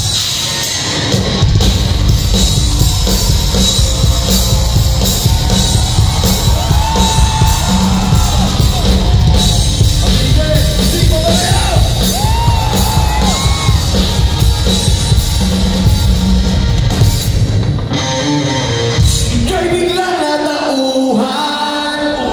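Live rock band playing loud in a hall: electric guitar, bass guitar and drums under a lead vocalist singing into a microphone, heard through a phone's microphone from within the crowd. About eighteen seconds in, the drums and bass drop back, leaving mainly voices singing.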